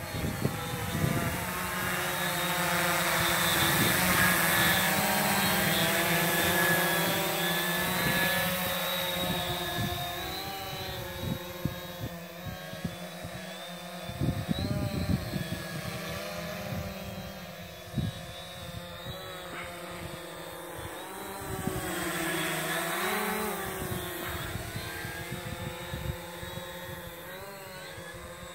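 HobbyKing Quanum Spider 700 multirotor drone in flight: its propellers give a buzzing whine whose pitch wavers up and down with the throttle. It is loudest in the first several seconds, fades as the drone flies farther off, and swells again a little past two-thirds of the way through.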